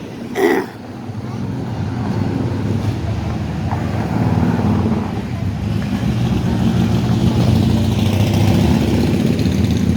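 Road vehicle engine running and growing louder as it draws near, with a brief loud pitched sound about half a second in.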